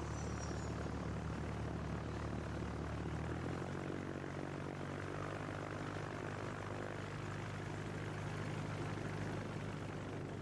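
Propeller engine of a Diamond DA20 light aircraft running steadily, its note changing about three and a half seconds in.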